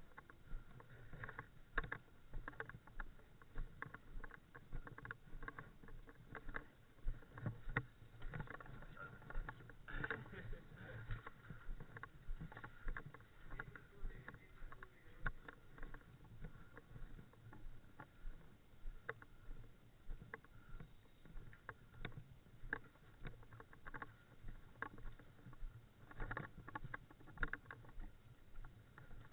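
Irregular clicks and crackling rustles over a low rumble, close to the microphone, like a player moving with gear on.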